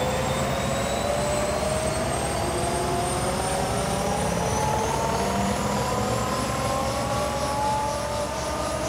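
Bell Huey-type turbine helicopter running on the ground with its main rotor turning: a steady rotor chop under an engine whine that climbs slowly in pitch.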